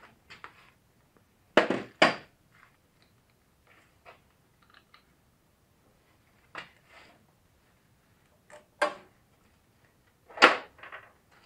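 Scattered sharp knocks and clunks of hand tools and parts being handled: a loud pair about a second and a half in, two single knocks in the middle, and the loudest near the end.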